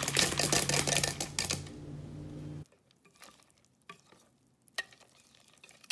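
Chocolate chips shaken from a plastic cup, rattling into a mixing bowl as a quick dense patter for about the first second and a half. After a sudden cut, a few faint soft ticks of a spoon stirring thick pancake batter.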